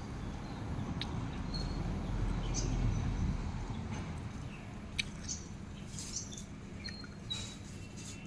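Small birds chirping in short, scattered high calls over a low rumble, with a few sharp clicks.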